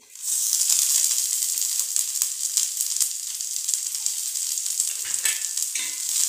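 Chopped onion dropped into hot oil in a kadhai, starting abruptly and sizzling steadily with many small crackles as it fries. A wooden spatula stirs it near the end.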